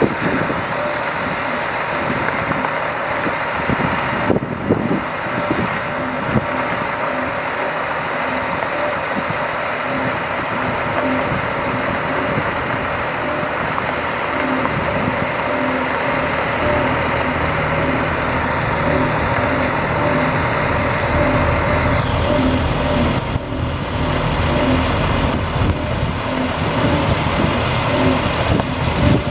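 A 2001 GMC C7500 medium-duty truck's engine running steadily at idle. A deeper rumble builds about three-quarters of the way through.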